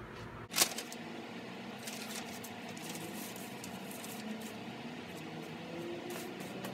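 Soft rustling and handling of fabric and paper as jerseys and craft paper are arranged on a bed, with one sharp knock about half a second in.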